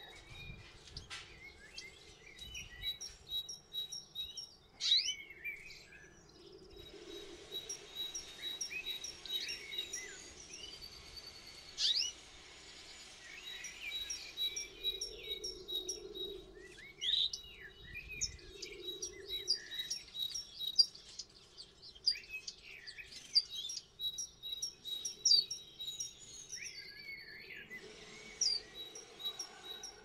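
Canaries and finches in an aviary chirping and calling, with many short chirps, quick sweeping notes and trills overlapping throughout.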